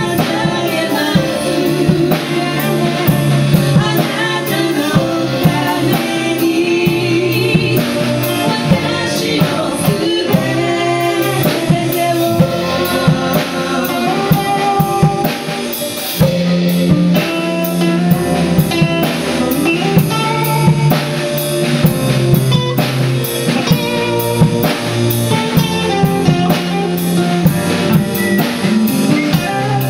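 Live band playing a gospel song: a woman singing in Japanese over an electric guitar, bass guitar, drum kit and stage piano, with a steady drum beat.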